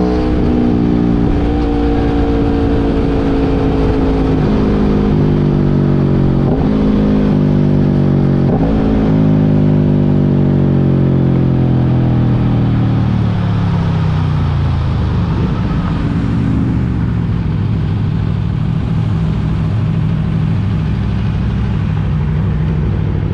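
Aprilia Tuono V4 motorcycle's 65-degree V4 engine heard from the rider's seat under way. The engine pitch holds steady, then falls steadily as the bike slows, with two short sharp cracks along the way, and settles into a low, steady run with wind noise.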